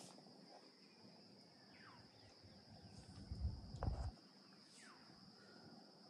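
Steady high-pitched drone of insects, with a few short falling bird calls. A brief low rumble about three and a half seconds in is the loudest thing.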